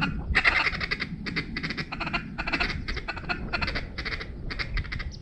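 About a dozen short, raspy duck quacks in quick succession, two to three a second, over a low wind rumble on the microphone.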